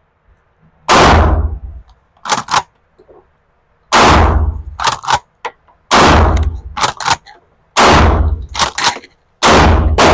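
Maverick 88 pump-action shotgun firing five shots about two seconds apart. Each blast is followed by the quick clack of the pump being racked to chamber the next shell.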